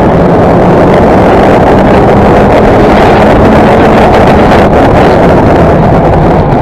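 Race car engine running hard at racing speed, heard loud from a camera mounted on the car's hood, with wind buffeting the microphone. The engine note rises a little through the middle and eases back near the end.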